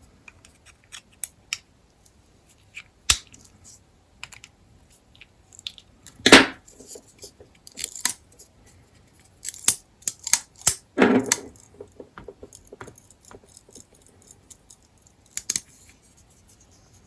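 CJRB Hectare folding knife being handled: scattered small clicks, taps and knocks of its metal parts and G10 handle, with a few louder knocks.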